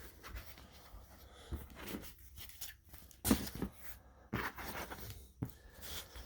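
Packaging being cut and pulled open by hand: scattered scrapes, rustles and taps, with a few louder scrapes about three seconds in and again near five seconds.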